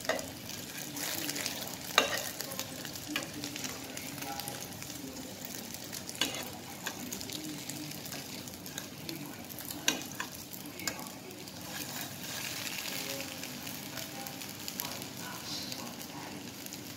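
Egg-dipped, bread-wrapped sausages sizzling steadily in butter in a frying pan, with several sharp clicks of metal tongs against the pan as the rolls are turned.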